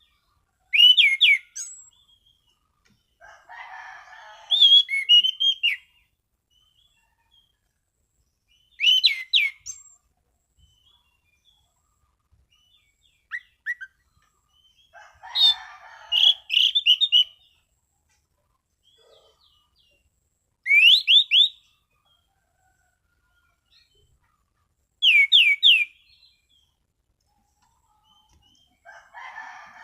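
Anis cendana (orange-banded thrush) singing: short phrases of quick, clear sliding whistles, repeated every few seconds with silent pauses between. Some phrases carry lower, rougher passages.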